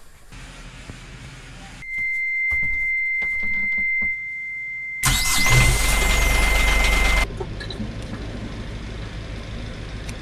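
Yanmar 4JH5E marine diesel being started: the instrument panel's alarm buzzer sounds a steady high beep, then about three seconds in the starter cranks loudly for about two seconds and the buzzer cuts off as the engine catches. The diesel then idles steadily.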